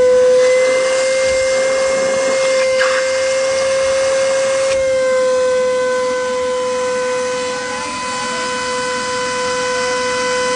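Shop vac running with a steady whine, sucking on a backed-up air conditioner condensate drain line to pull the clog out. A rushing sound of drawn air rides over the motor at first, then eases as the pitch dips slightly about five seconds in.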